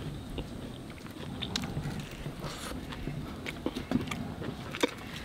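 A man eating with his hands: tearing pieces of tandoori roti, scooping chicken curry and chewing, heard as scattered small wet clicks and smacks.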